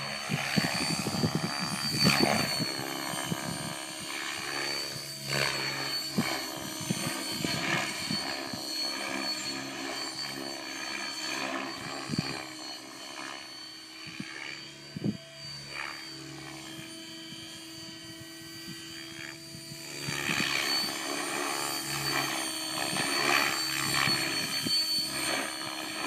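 Outrage Fusion 50 radio-controlled helicopter flying 3D aerobatics: a steady high whine under the whoosh of the rotor blades, its pitch rising and falling with each manoeuvre. It is loudest in the first few seconds and again in the last several, and quieter in between.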